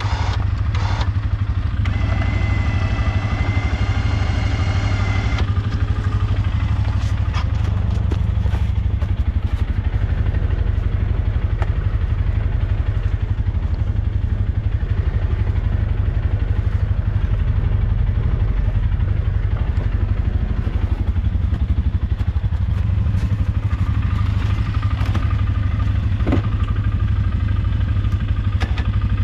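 Four-wheeler (ATV) engine running steadily. A higher engine note is heard for a few seconds near the start, and there are a few short knocks.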